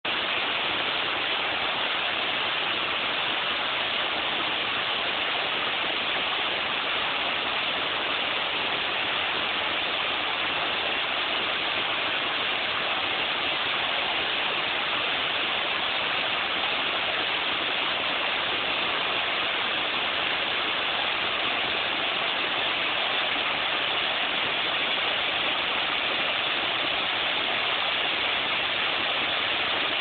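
Waterfall pouring onto rocks: a steady, unbroken rush of falling water.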